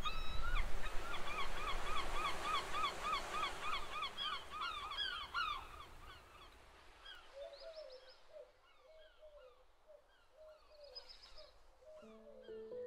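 Herring gulls calling, a rapid run of repeated yelping notes over the wash of waves; the calls thin out and grow fainter after about six seconds. Music starts near the end.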